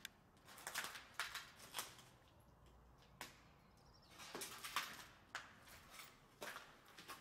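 Footsteps crunching grit and debris on a littered floor, a few steps a second, with a pause of about two seconds before the steps resume.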